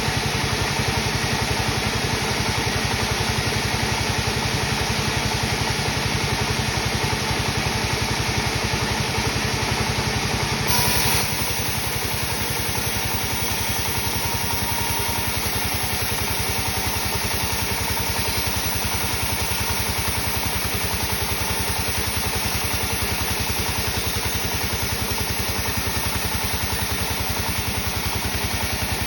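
Sawmill machinery running steadily with a low engine drone. The sound drops slightly and changes character about eleven seconds in.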